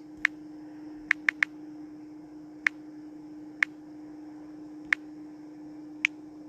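Typing on a phone's touchscreen keyboard: eight short clicks at irregular intervals, three of them in quick succession about a second in, over a steady low hum.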